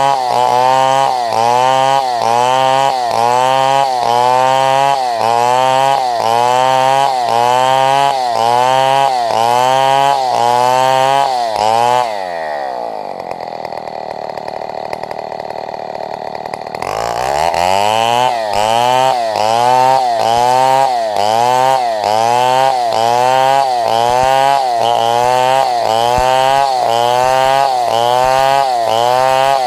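Two-stroke chainsaw running at high revs, its pitch rising and falling regularly about once a second. About twelve seconds in it drops back toward idle, and some five seconds later it revs back up.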